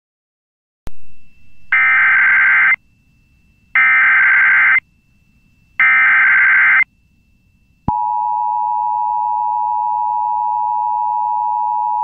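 Emergency Alert System tornado emergency tones. After a click about a second in come three one-second bursts of the SAME digital header's screechy data tones, about two seconds apart. About eight seconds in, the steady attention tone starts.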